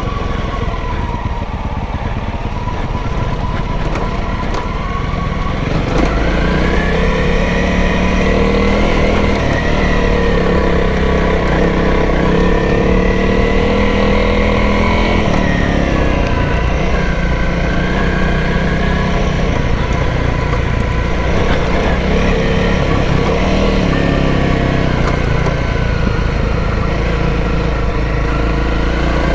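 Honda CRF300L's single-cylinder four-stroke engine running on the move over a steady low rumble. Its pitch rises and falls as the revs change, and it gets louder about six seconds in.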